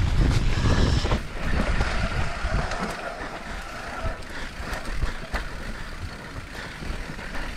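Ride noise from a mountain bike on a downhill trail, picked up by a helmet- or bike-mounted GoPro: a low rumble of wind on the microphone and tyres on the ground, strongest in the first second or so, with a few scattered clicks and knocks.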